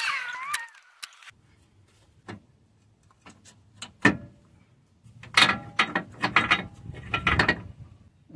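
Hydraulic bottle jack under the engine being let down, with metallic clicks and creaks as the engine settles onto loosely bolted motor mounts. It opens with a brief squeak, and the clicking turns into a dense rapid run from about five seconds in.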